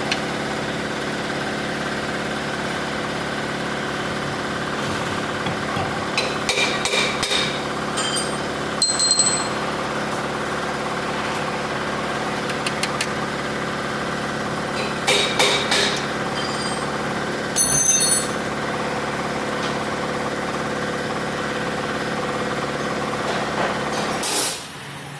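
An engine idling steadily, with short metallic clinks and taps of tools on metal at intervals; the engine hum cuts off about a second before the end.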